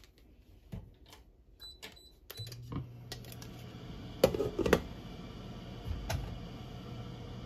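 Electric cooktop beeping briefly at its controls, then switching on about two and a half seconds in with a steady low hum and fan hiss. A glass pot lid clatters onto the saucepan about four seconds in, followed by a lighter knock a couple of seconds later.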